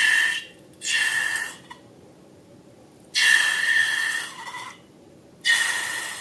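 Air hissing in short bursts through a rubber balloon's neck with a faint steady whistle, four times, the third the longest.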